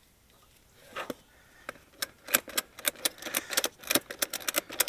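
Ratchet strap being tightened: the ratchet buckle clicking in quick irregular runs from about two seconds in, after a short scrape of the strap.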